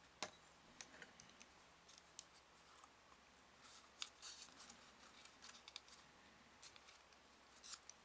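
Scissors snipping thin chipboard strips: a scattering of faint, short, sharp cuts, with light handling of the card between them.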